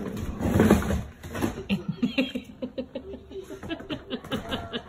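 Six-week-old puppies playing: a loud rustle and bump close by in the first second, then a run of short, squeaky puppy yips, about three a second.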